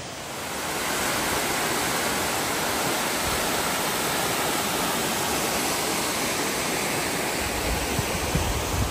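Mountain brook cascading down steep rock slabs: a loud, steady rush of white water that swells up over the first second. A low rumble joins in near the end.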